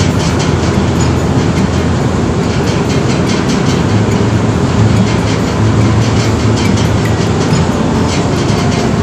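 Loud, steady drone of a ship's engines and machinery, with a fast rattle over it.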